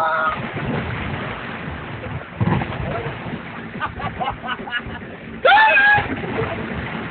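People jumping into a small inflatable above-ground pool, water splashing as they land. A shout comes as the first one jumps, and a loud yell comes near the end as the next one goes in, with short bits of voices between.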